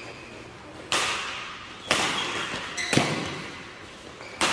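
Badminton rackets striking the shuttlecock in a doubles rally: four sharp cracks about a second apart, echoing in the hall, the third the loudest.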